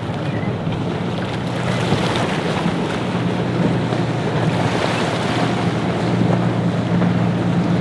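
Boat engines running steadily through rough water, with waves breaking and wind buffeting the microphone; the engine hum grows slightly louder near the end.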